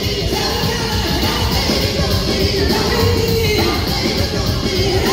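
Live rock band playing loud, with singing over drums, electric guitar, keys and horns, recorded from the audience in a theatre.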